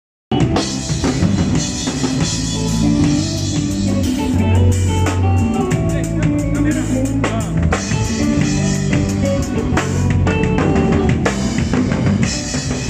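A live band playing, drum kit to the fore with bass drum and snare hits over bass and melody instruments; it starts abruptly a moment in.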